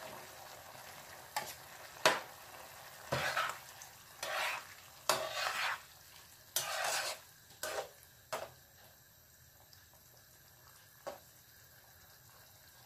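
Slotted metal spatula stirring and scraping through a wet stew in a frying pan, with a run of separate scrapes and taps over the first eight seconds and one more tap near the end. A faint sizzle of the simmering pan runs underneath.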